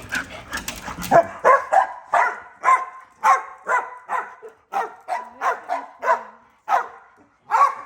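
Dog barking over and over, a quick run of short barks about two a second.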